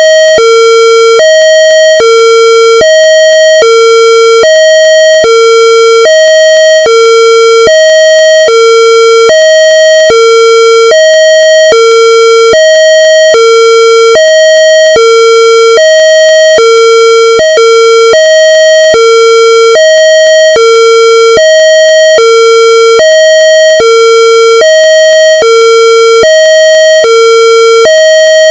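Two-tone police siren alternating steadily between a low and a higher note, about one high-low cycle a second, loud and unchanging.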